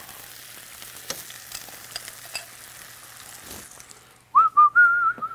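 Precooked Israeli couscous sizzling in a pan of hot oil, garlic and a little water as it is poured in and stirred, with a few light clicks of tongs against the pan. Near the end the sizzle fades and a short run of loud, wavering high notes sounds.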